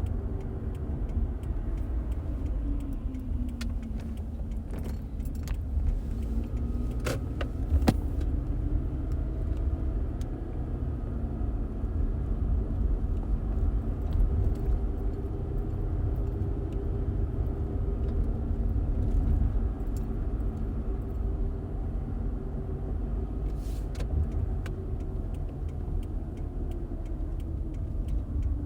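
Steady road and engine rumble heard from inside a moving car. The engine tone drops in the first few seconds, climbs and holds steady through the middle, then drops again near the end as the car slows. A few light clicks and rattles come from inside the cabin.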